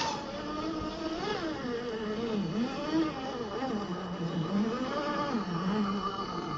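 The 50-turn electric motor and geared drivetrain of a 1/10-scale RC crawler whining, the pitch rising and falling as the throttle is eased on and off while it crawls over rock.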